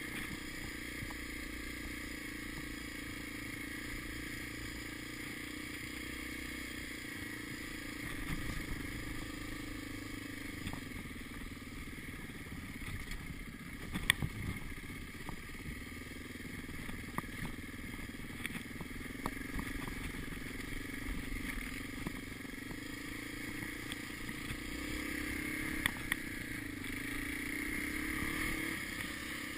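Dirt bike engine running while riding a rough trail, with the revs rising and falling and climbing higher near the end. A few sharp knocks sound as the bike jolts over rocks, the loudest about halfway through.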